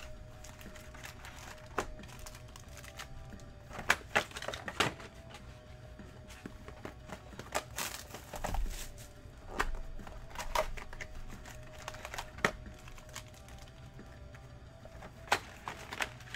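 Cardboard trading-card hobby boxes being handled, shuffled and set down on a table: scattered knocks, taps and light crinkling of their wrap, the sharpest about four seconds in and near the end.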